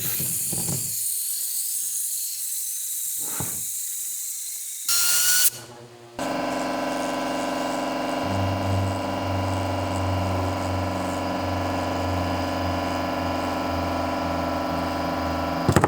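Vacuum-chamber pump set-up: a steady high hiss of air, then a brief louder burst with a rising whistle. After a short gap comes a steady electric motor hum, like a vacuum pump running, with a low drone joining about eight seconds in.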